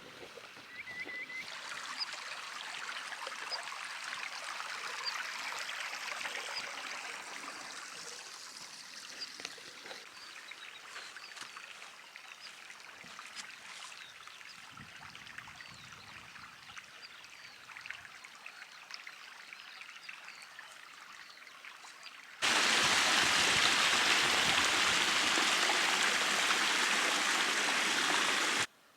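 Running stream water with small chirps over it. Near the end it jumps suddenly to a much louder, closer rush of water, which stops abruptly.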